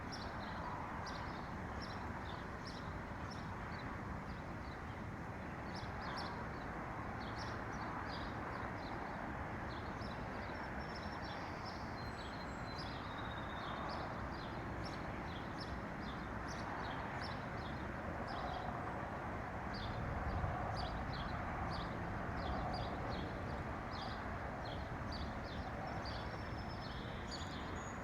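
Small songbirds chirping in many quick, short notes throughout, over a steady rushing background noise.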